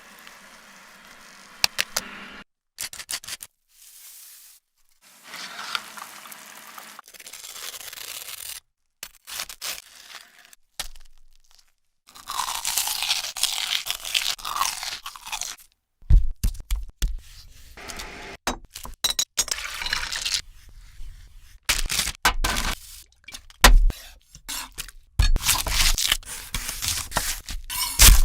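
A run of short food-preparation sounds in quick succession, broken by abrupt cuts and gaps: stretches of scraping and crunching, then, in the second half, a dense series of sharp knocks and clicks.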